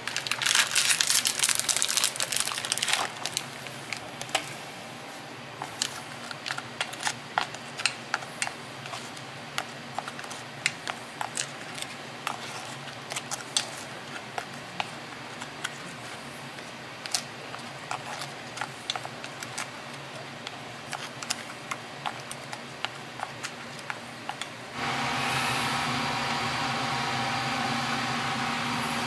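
Wire whisk beating batter in a stainless steel bowl, rapid metal clinks for about three seconds, then scattered clicks and taps as Oreo cookies are dipped and coated in the batter. Near the end a louder steady hiss and hum sets in.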